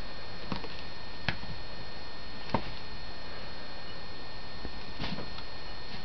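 A few light taps and rustles from a kitten batting and biting a rope in a padded pet bed, the sharpest about a second and two and a half seconds in, over a steady hiss with a faint hum.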